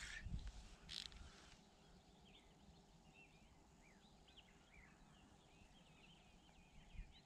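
Faint birdsong: quick chirps and short gliding whistles against near quiet, with a brief rustling burst about a second in.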